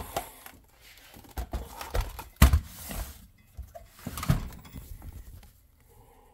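Metal chassis of a Dell PowerEdge R620 1U server being turned around by hand: scraping and rubbing with several knocks, the loudest a sharp knock about two and a half seconds in.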